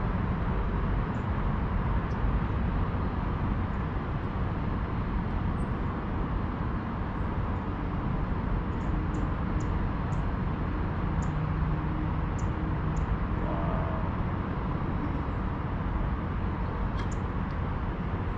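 Steady outdoor background noise: a low rumble with hiss, with faint short ticks scattered through it.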